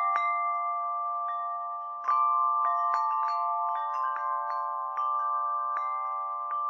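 Intro music of chimes: a held chord with tinkling, bell-like notes struck over it, swelling louder about two seconds in.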